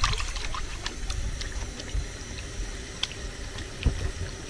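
Hands sloshing and rubbing fish pieces in a glass bowl of water, with scattered small splashes and drips.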